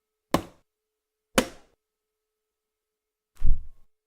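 Sound effects: two sharp cracks about a second apart, then a louder, deeper thump near the end.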